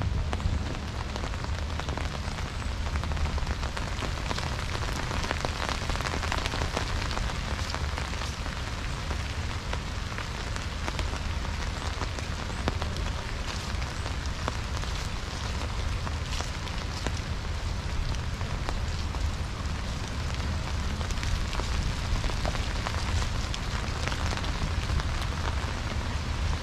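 Steady rain pattering, with many small scattered drop ticks over a low steady rumble.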